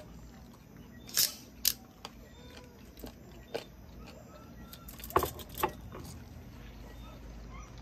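Close-miked eating sounds: a handful of sharp, brief crunches and mouth clicks from chewing crunchy food, the loudest about a second in and around five seconds in, over a low steady hum.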